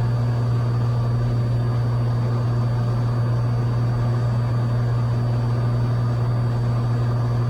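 Cessna 182's piston engine and propeller in steady cruise, a constant low drone heard from inside the cockpit.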